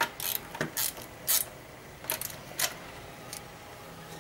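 Hand ratchet clicking in short, irregular bursts as the fairing clamp bolts are snugged up, the last burst about three and a half seconds in.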